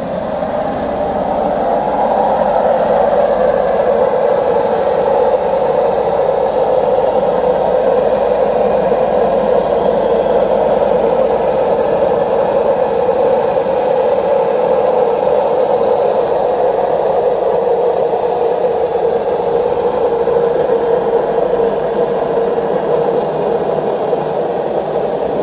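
Washing machine on its spin cycle giving off a loud, steady jet-turbine-like roar from the drum, building up over the first couple of seconds and then holding level. Worn drum bearings cause it; both bearings and the seal need replacing.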